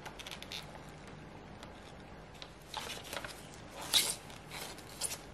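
Packaging handled by hand: scattered short rustles and light clicks, the sharpest about four seconds in.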